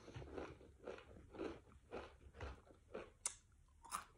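Faint crunchy chewing of nacho cheese Doritos tortilla chips, about two soft crunches a second, with a couple of sharper crunches near the end.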